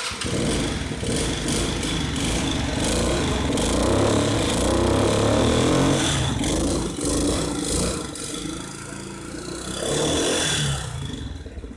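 Scooter engine with a customized exhaust starting and running loud, revved up and down, with two swells in level, the second near the end, before it dies away.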